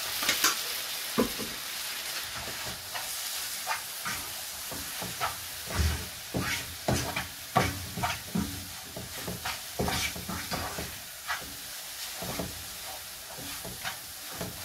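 Wooden spatula stirring and scraping a thick semolina toffee mixture around a non-stick frying pan: irregular scrapes, about one or two a second, over a steady sizzle.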